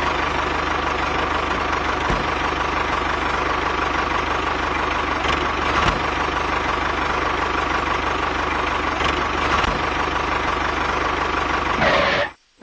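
Tractor engine running steadily with a fast, even chug and a steady whine, cutting off abruptly near the end.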